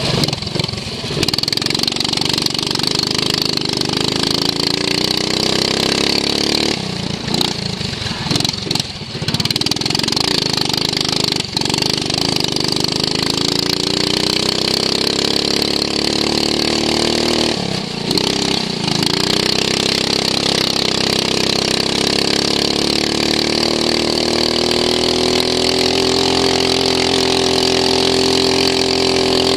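Racing lawn mower engine heard onboard, revving up and down with the track: the pitch drops and breaks up about seven seconds in and again around eighteen seconds as the throttle comes off, then climbs steadily near the end under acceleration. A steady high whine runs alongside.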